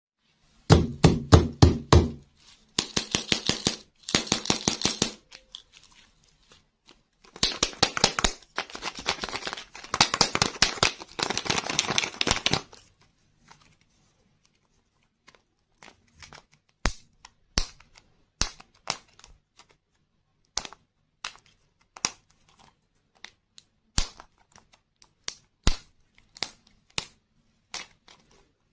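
Crinkling and tearing of the plastic wrapping on a toy-filled lollipop as it is unwrapped by hand, in three dense crackling runs during the first half. After that come only scattered sharp single crackles and clicks as fingers work at the wrapper and label on the plastic capsule.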